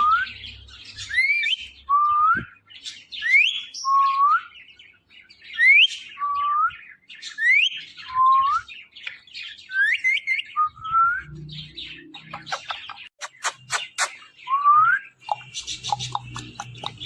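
Ringneck parrot calling over and over, each call a quick rising whistle followed by a lower, slightly rising note, repeated about every two seconds. A run of sharp clicks comes about two-thirds of the way in, then a few more calls.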